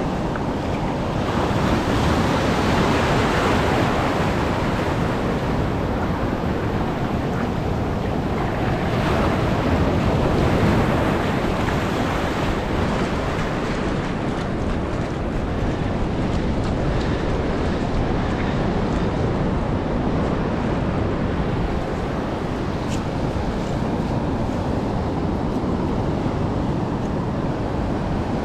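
Heavy surf from a rough sea breaking and washing onto the shore, a steady wash that swells louder twice, at about two seconds in and again around ten seconds.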